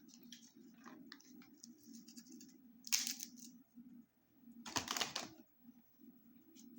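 A snack bag of pork rinds being handled: it crinkles in two short, louder bursts about 3 and 5 seconds in, with small rustles and clicks between them.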